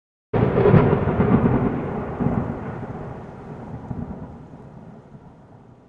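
A sudden loud rumbling boom, like a thunderclap, that starts about a third of a second in and fades away steadily over about five seconds.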